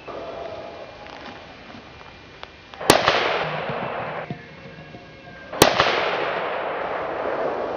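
Two gunshots from a hunting gun about 2.7 seconds apart, each followed by a long rolling echo that fades over a second or two.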